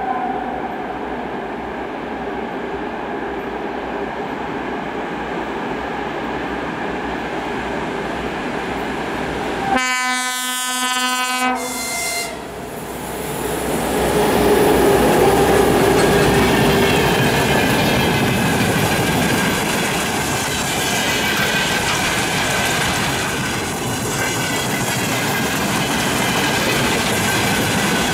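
Two ST44 (Soviet M62) diesel locomotives with two-stroke V12 engines drone as they approach at the head of a freight train. About ten seconds in, a horn sounds one blast of about a second and a half, followed by a short second note; this is the Rp1 'attention' warning signal. The locomotives then pass, louder, and the loaded wagons rumble and clatter by.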